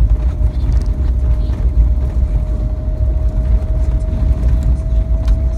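Inside a vehicle driving on a gravel road: a loud, steady low rumble of engine and tyres on gravel, with a faint steady whine that slowly rises in pitch.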